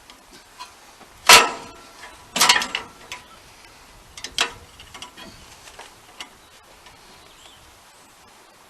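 Metal clanks and rattles of a band sawmill blade being worked onto the mill's blade wheels. The loudest clank comes just over a second in, a cluster of clanks follows at about two and a half seconds, and lighter ticks die away after that.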